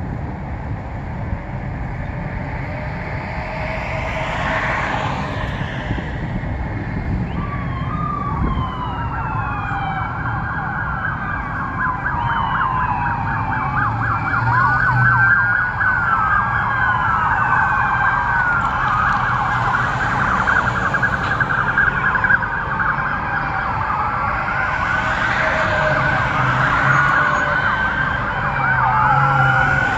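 Several police car sirens sounding at once, overlapping slow wails and rapid yelps, growing louder from about eight seconds in over steady road traffic noise.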